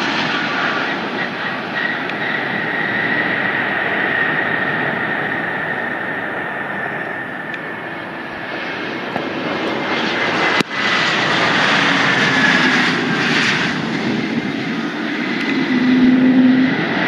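Airplane engines running loud, a broad rush with a high whine on top that sinks slightly in pitch, swelling again near the end. A sharp click about ten and a half seconds in briefly cuts the level.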